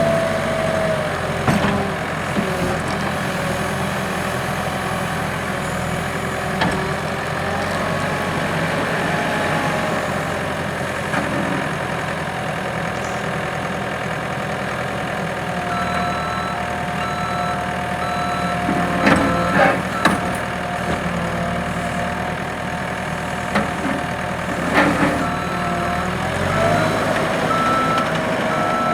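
2008 ASV RC-100 compact track loader's 99.5 hp Perkins turbo diesel running steadily, its whine rising and falling as the machine works. Its backup alarm beeps in two spells, past the middle and near the end, and a few sharp knocks come in between.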